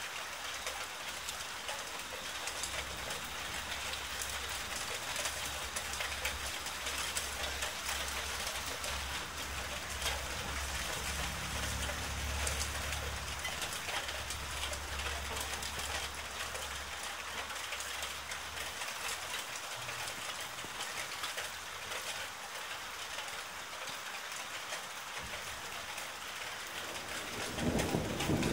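Heavy rain falling steadily as an even hiss, with a low rumble beneath it that swells around the middle and dies away about two-thirds through.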